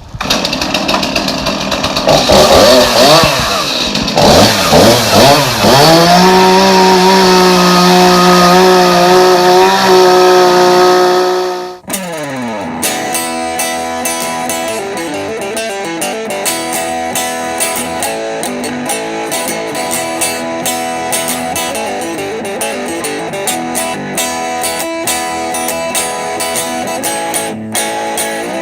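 A two-stroke chainsaw revving up and down, then held at full throttle for several seconds. It cuts off suddenly about twelve seconds in, and guitar music follows.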